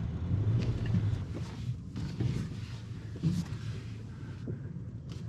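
Pickup truck engine running at low revs while the truck sits stuck on a steep rocky climb, with a few brief knocks or creaks.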